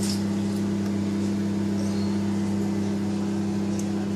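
Kenwood microwave oven running mid-cycle while heating food, a steady low hum.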